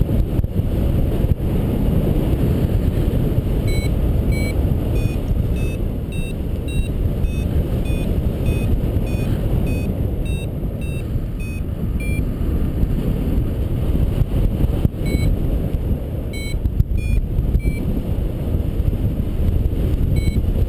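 Airflow buffeting the microphone in flight, with a paragliding variometer beeping about twice a second from around four seconds in, its pitch rising and falling as the climb rate changes; the beeps, which sound only in rising air, stop for a few seconds in the middle and come back twice.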